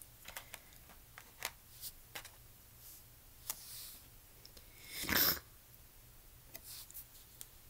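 Small LEGO pieces clicking and tapping as they are handled and pressed together, with a louder brief rustle about five seconds in.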